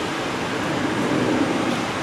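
Airbus A330-300's twin Pratt & Whitney PW4168A turbofans at takeoff power during the takeoff roll: a steady jet roar that swells slightly about a second in.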